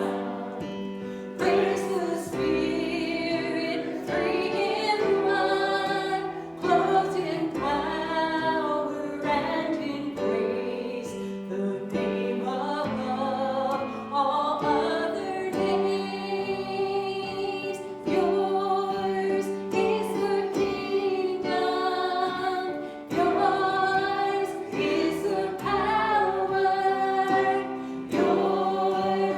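A group of voices singing a worship song over sustained instrumental accompaniment.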